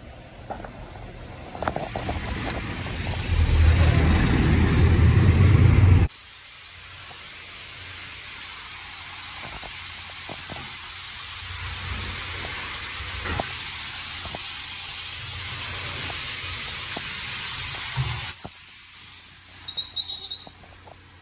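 Water spray of a Mark VII SoftTouch XT in-bay automatic car wash: spray drumming loudly on the car, which cuts off abruptly about six seconds in to a steady hiss of the spray jets. Near the end the hiss breaks off and a few short high squeaks follow.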